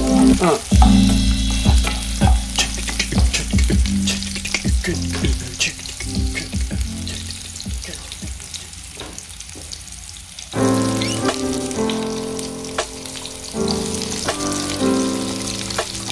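Sliced ginger and garlic sizzling and crackling in hot oil in a nonstick wok with many small pops, stirred with a wooden spatula. Background music plays over it in the first few seconds and again from about two-thirds of the way in.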